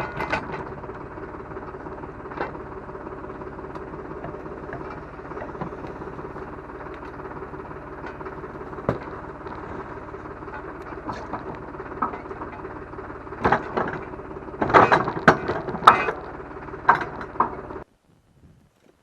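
An engine running steadily, with scattered metal knocks and a burst of loud clanks near the end; the sound cuts off abruptly just before the end.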